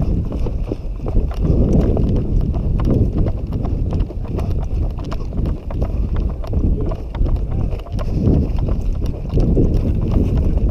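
Footsteps of a player walking over rough ground, with gear rattling and wind buffeting the helmet-mounted microphone.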